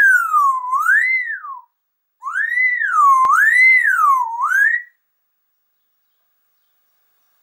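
Whistling: one clear tone sliding smoothly up and down, about one rise and fall a second, in two runs with a short break between them. It stops about five seconds in, and a single click falls near the middle of the second run.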